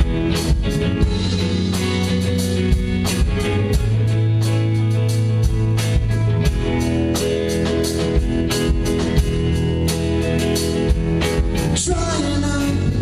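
A live rock band playing loudly: electric guitars over a steady drum-kit beat.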